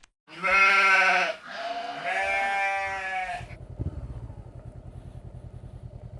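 Two bleats like a sheep's, each about a second long, followed by a motorcycle engine running at low revs with an even, low pulsing.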